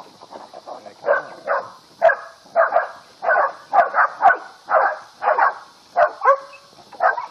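Four-month-old puppies barking over and over at a hog, about two barks a second, starting about a second in.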